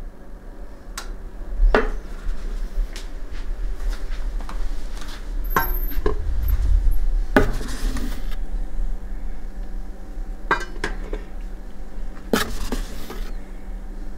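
Scattered clinks and taps of a utensil against containers, with a couple of short rustling hisses, as egg white protein powder is scooped into a container on a kitchen scale.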